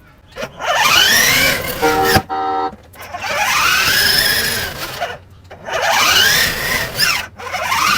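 Recorded engine-revving sound effect from a ride-on toy car's speaker: four electronic revs, each sweeping up in pitch and falling away. Between them come short beeping horn tones, about two seconds in and again near the end.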